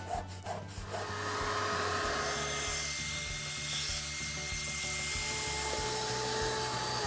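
A grout rake scrapes briefly in a tile joint. From about a second in, a vacuum cleaner runs steadily with a hiss and a few fixed whining tones as its hose nozzle sucks up the loosened grout dust. It starts to wind down right at the end.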